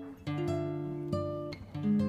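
Background music: an acoustic guitar playing plucked chords, three struck in turn and each left to ring.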